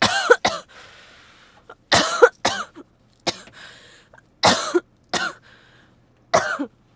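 A woman coughing repeatedly in short fits of one to three coughs, a new fit every second or so: the cough of a cold.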